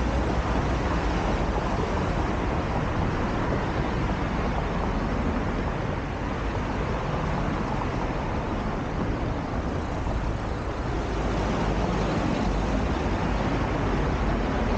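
Road traffic noise: a continuous wash of passing cars, heaviest in the low end, easing slightly for a few seconds midway.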